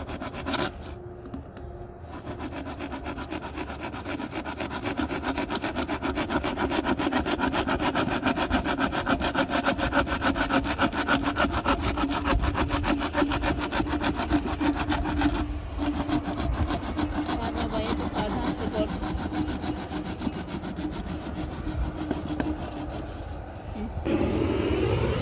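A hacksaw blade worked by hand through a black plastic pipe, cutting in rapid, even strokes with a short pause partway and stopping near the end as the pipe is cut through.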